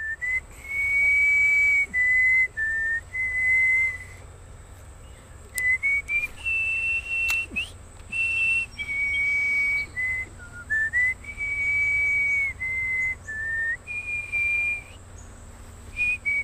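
A person whistling a slow tune: clear single notes, each held for up to about a second and a half, stepping up and down in pitch with short breaks between phrases.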